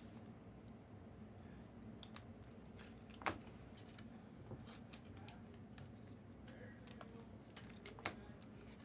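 Quiet, scattered light clicks and taps, with two sharper clicks about three seconds in and near the end, over faint room hum.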